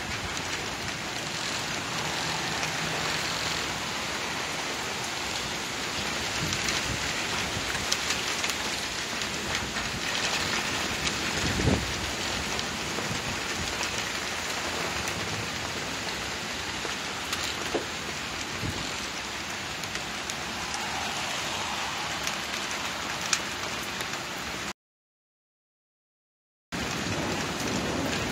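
Rain falling steadily, a constant hiss with scattered drop taps. There is a single low thump about twelve seconds in, and the sound cuts out completely for about two seconds near the end.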